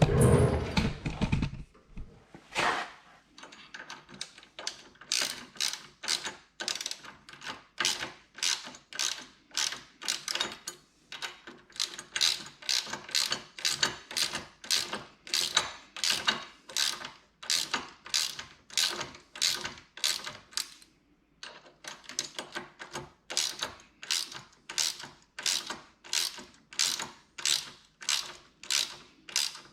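A hand ratchet wrench clicking in steady repeated strokes, about two a second, as it tightens the locking nuts on clamp-on peg brackets; there is a short pause about two-thirds of the way through. A loud clunk of handling the tool and parts comes at the start.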